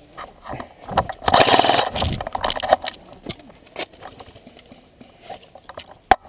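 Airsoft rifle firing a short rapid burst about a second in, a quick run of clicks lasting under a second, followed by scattered single clicks and knocks.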